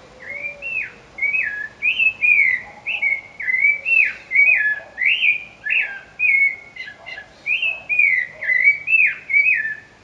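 Rufous-bellied thrush (sabiá) singing: a continuous run of short, fluty whistled phrases, each sliding up or down in pitch, about two a second.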